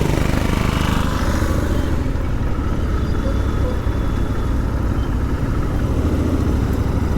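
Royal Enfield Interceptor 650 parallel-twin engine running steadily while the motorcycle is ridden on the road, a dense low engine sound under road noise.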